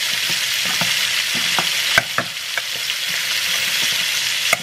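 Steady sizzling of food frying in a pan, with irregular clicks and knocks of a metal potato masher working potatoes in a pot. The sharpest knock comes about two seconds in, another near the end.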